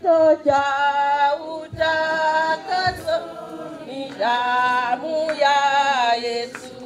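Voices singing a hymn in long held notes, with short breaks between the phrases.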